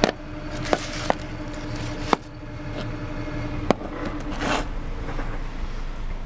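Small steel lathe accessories handled on a table: about five sharp clicks and knocks of metal parts being picked up and set down, then a short rustle, over a steady low hum.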